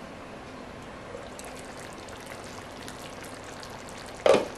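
Chicken curry simmering in a wide pan, a steady bubbling hiss as the lid comes off. Near the end there is a single sharp knock.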